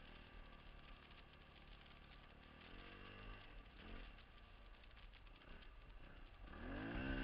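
Dirt bike engine, faint and steady at low revs, with a brief rev up and down about three seconds in and a stronger rise in revs near the end as the bike accelerates.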